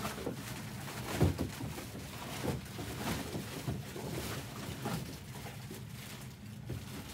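Trading cards and empty foil pack wrappers handled on a tabletop: irregular rustling, sliding and light taps as cards are counted and stacked, with one louder knock about a second in, over a low steady hum.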